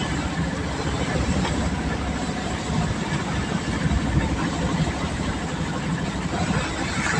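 Heavy rain and hail coming down: a steady, dense hiss over a low rumble.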